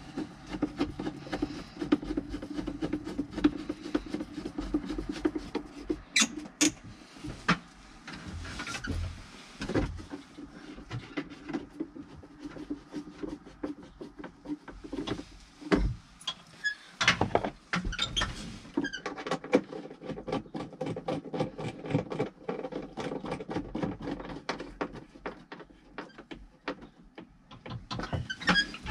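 Small clicks, knocks and scratching of a screwdriver and plastic parts as the cover goes back on a backhoe's pilot control pedestal, with a fast run of ticks over the last ten seconds or so.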